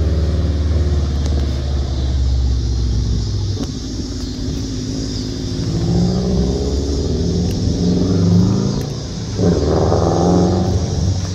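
A 2020 Subaru WRX STI's turbocharged flat-four running through an MBRP race catback exhaust with no resonator and no mufflers. It gives a loud, deep rumble as the car pulls away, then fainter rising revs as it accelerates off, about six seconds in and again near ten seconds.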